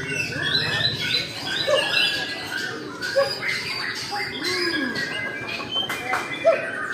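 Many caged white-rumped shamas singing at once: a dense, unbroken tangle of overlapping whistled phrases and quick notes.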